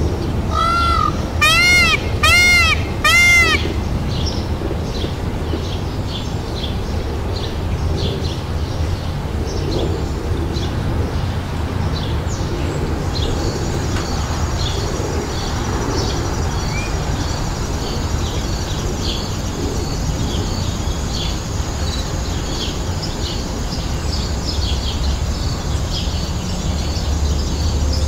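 Bird calls: four or five loud, clear repeated calls in the first few seconds, then many small birds chirping through the rest, over a steady low rumble.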